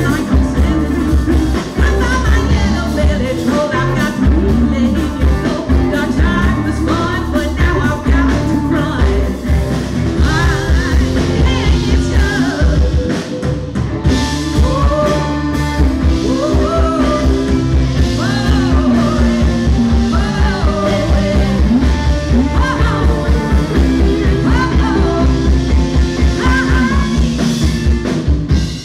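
Live rock band playing: female vocalists singing over electric guitars and a drum kit, with a steady, pulsing kick-and-bass beat.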